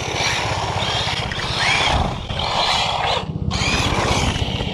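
HPI Jumpshot ST Flux RC truck's brushless electric motor whining up and down in pitch as it accelerates and slows on 2S, with its tyres running over rough pavement and a steady low rumble underneath.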